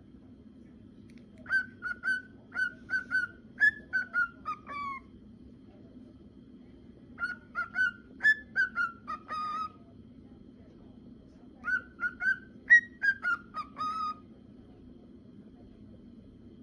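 Male cockatiel whistling the same short song three times, each phrase a quick run of clear whistled notes that steps down in pitch at its end, with pauses of about two seconds between phrases.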